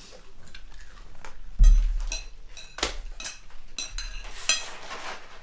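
Forks and spoons clinking and scraping against dinner plates in a series of sharp, ringing clinks, with one dull thump about one and a half seconds in.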